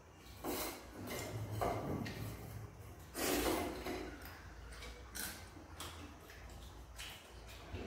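Close-up eating sounds: a person chewing with wet mouth noises and smacking in short, irregular bursts about every second.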